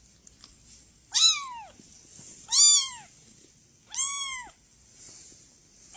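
A cat meowing three times, evenly spaced about a second and a half apart, each meow rising and then falling in pitch.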